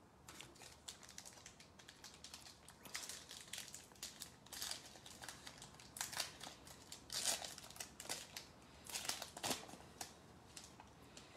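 Foil wrapper of a Panini Select football card pack being torn and peeled open by hand: a run of faint, irregular crinkles and crackles, sparse at first and busier after a few seconds.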